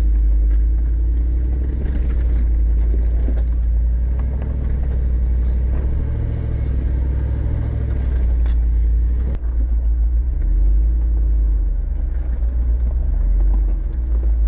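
Off-road vehicle engine running with a steady low rumble. A single sharp click comes about nine seconds in, after which the higher hiss drops away.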